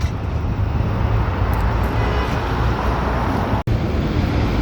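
Steady city street traffic noise, a dense rumble of passing vehicles, which cuts out for an instant about three and a half seconds in.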